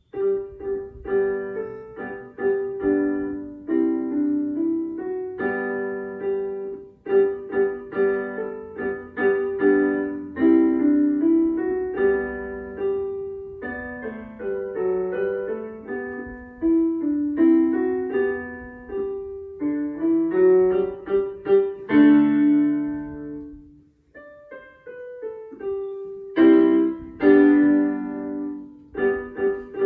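Digital piano played by a child, a melody with chords in a steady run of separate notes. The playing breaks off briefly about four fifths of the way through, then picks up again.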